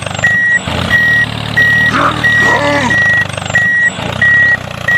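Vehicle reversing alarm beeping evenly, about one and a half beeps a second, over a steady low engine hum as the mini tractor backs up its trolley.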